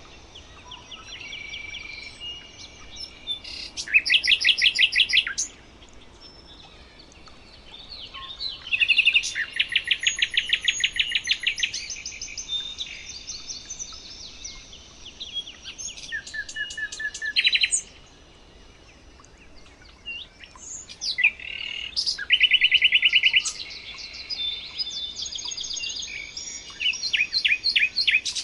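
Several songbirds singing, with fast rattling trills and high chirps coming in bursts of a second or two, the loudest about 4, 9 and 22 seconds in.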